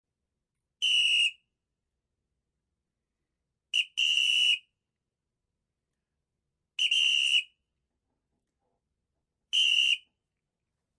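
A whistle blown in four short, shrill blasts of about half a second each, roughly three seconds apart, each on one steady high pitch. The second blast is preceded by a quick extra toot.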